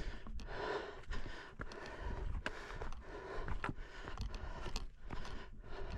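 Hiking boots scraping and clicking irregularly on rock, over a low rumble of wind on the microphone.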